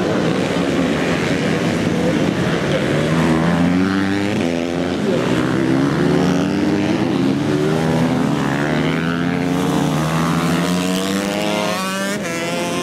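Supermoto motorcycle engines racing, revving hard. Their pitch climbs and drops again and again as the bikes accelerate and brake through the turns.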